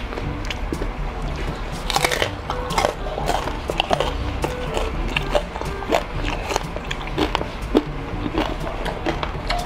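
Close-up crunching and chewing of crispy pata, deep-fried pork knuckle skin, with a few louder crunchy bites about two seconds in and near the end. Background music plays underneath.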